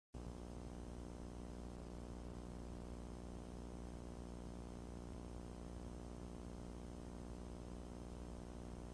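Cessna 150's four-cylinder Continental O-200 engine and propeller idling steadily, heard as an even, low hum with a faint hiss.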